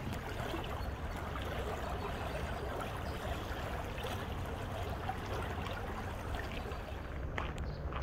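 Shallow river running over rocks and stones: a steady rush of flowing water. A few light clicks come near the end.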